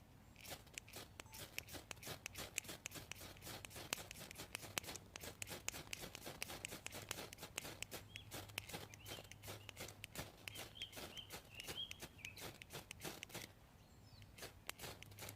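Faint, dense, irregular crunching and crackling of dry twigs and leaf litter being trodden or handled, stopping about a second before the end. A small bird chirps several times in the second half.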